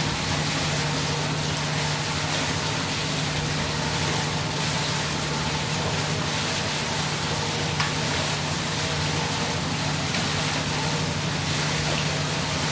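A steady engine drone: a constant low hum with fainter tones above it and a hiss over the top, unchanging throughout. A single short click about eight seconds in.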